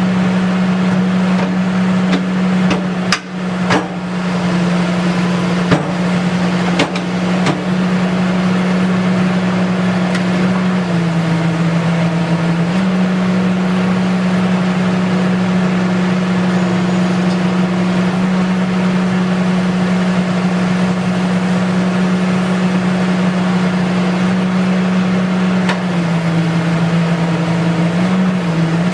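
Excavator engine running steadily, its pitch dipping twice for a second or two, with a few sharp knocks about three and seven seconds in.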